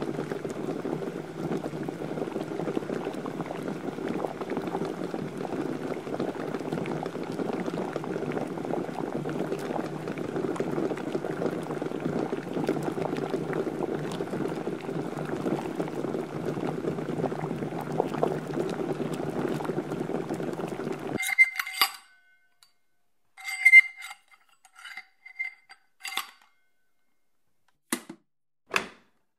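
Water at a rolling boil, a steady dense bubbling that cuts off abruptly about 21 seconds in. It is followed by a few ringing clinks of kitchen tableware and two short, sharp clicks near the end.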